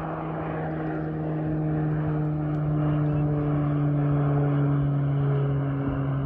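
Light propeller airplane climbing out after takeoff: a steady propeller drone with a low hum, growing a little louder.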